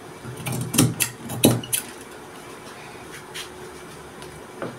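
Scissors cutting through fabric: a handful of sharp snips, most in the first two seconds, then a couple of fainter clicks of the blades.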